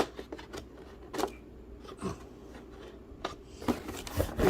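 Hands working at packaging to pull out robot vacuum side brushes: scattered clicks and taps, then a denser rustle near the end.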